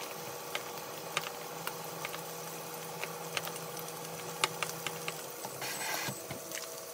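Wooden chopsticks clicking lightly against a small ceramic bowl while tossing green beans, with a faint crackling sizzle from a steak in a frying pan and a steady low hum under it. A short louder hiss comes about six seconds in.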